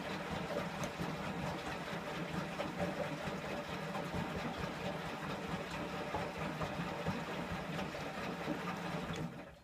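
Candy Aquamatic 2 compact washing machine turning its drum on an empty Cotton 95 descaling wash: a steady motor hum with water churning, which stops abruptly near the end as the drum pauses between tumbles.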